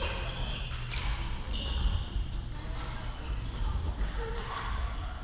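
Badminton play on an indoor court: sharp racket hits on the shuttlecock and short squeaks of players' shoes on the synthetic court mat, with the loudest hit about two seconds in, over the steady rumble of a large hall.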